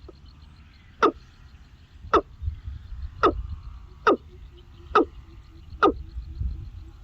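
An animal calling: six short, sharp calls about a second apart, each a very quick downward sweep, over a faint fast ticking.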